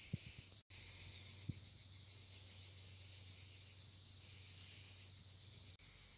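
Insects chirring steadily, a faint high pulsing trill, which breaks off briefly under a second in and drops away near the end. A couple of soft low thumps come in the first two seconds.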